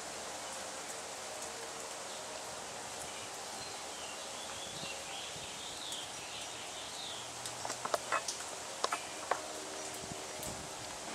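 Outdoor ambience with a steady hiss and a bird chirping in the middle, then a quick cluster of sharp clicks and knocks near the end.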